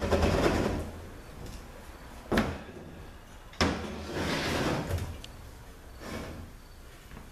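A Ford 4R100 automatic transmission case is being rolled over on a metal workbench: the case scrapes across the bench top, with two sharp knocks about two and a half and three and a half seconds in, and more scraping after the second knock.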